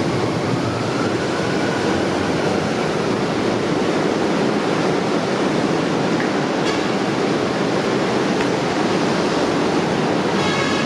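Manila MRT Line 3 train running, a steady rumble and hiss, with a faint whine rising in pitch in the first few seconds.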